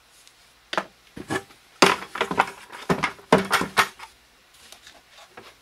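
A plastic 5-gallon bucket being handled and tipped onto its side on a workbench: a string of knocks and thumps from about a second in until about four seconds in, then only faint small ticks.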